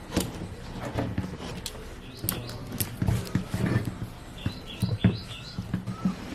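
Scattered knocks, clinks and scrapes of a cooking pot and its lid being handled as the salt-baked chicken is opened, with a bird chirping several times about four to five seconds in.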